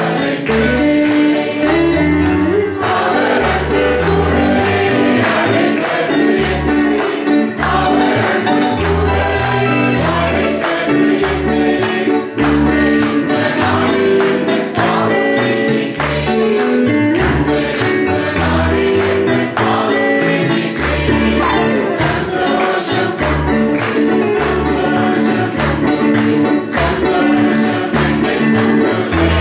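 Upbeat Tamil Christian praise song: singers at the microphones over backing music with a bass line and a steady beat, and a high jingling percussion stroke about twice a second.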